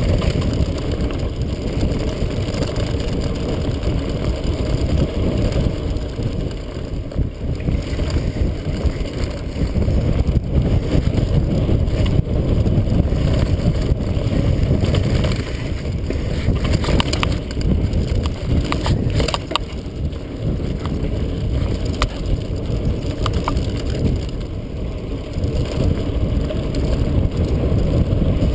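Mountain bike riding down a dirt singletrack: steady wind rumble on the microphone and knobby tyres rolling over the trail, with sharp rattles and clicks from the bike over rough ground, a cluster of them about halfway through.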